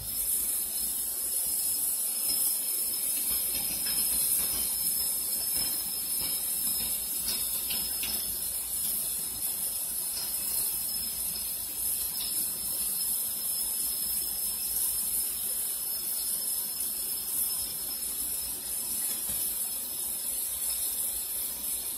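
Kitchen faucet running lukewarm water in a steady stream over a frozen whole whiting in a stainless steel sink, a steady hiss with a thin high whine underneath, as the skin is loosened to peel off.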